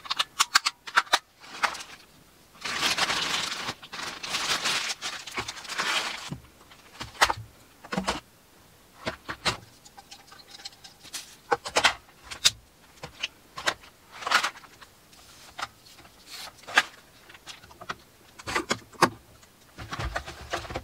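Small plastic and glass items, a toothbrush case and a glass cup among them, being handled and packed away at a campervan's small sink: a string of sharp clicks, taps and light clatter, with a stretch of hissing rustle about three to six seconds in.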